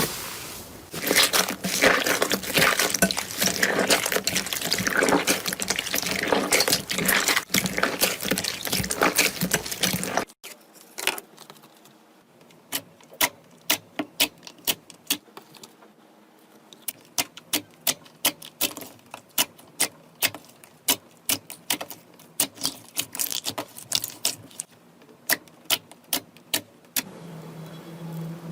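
Slime being squished and worked by hand, a dense crackle of small clicks and pops. After a cut about ten seconds in it turns to separate sharp clicking pops, a few a second.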